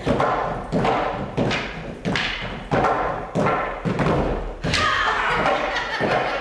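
Wooden morris dance sticks struck together in a steady beat, about three strikes every two seconds, each ringing briefly. About two-thirds of the way through, accordion music comes in.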